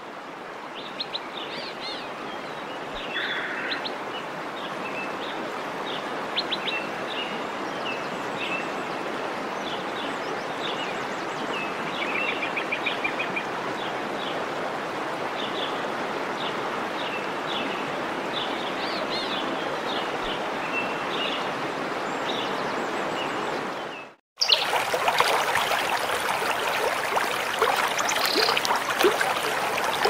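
Steady rush of a forest waterfall with many birds chirping over it. About 24 s in the sound cuts out for a moment and a louder rush of flowing water follows.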